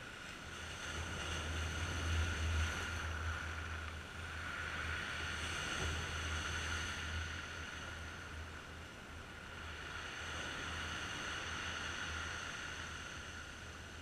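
Sea waves breaking and washing over a rocky shore, surging and easing about three times, with a deep rumble underneath.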